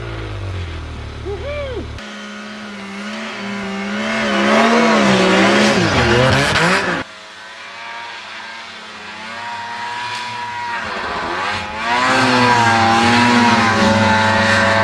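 Ski-Doo Summit snowmobile engines revving up and down as the sleds plough through deep powder snow, the sound changing abruptly about 2 and 7 seconds in, loudest near the middle and towards the end.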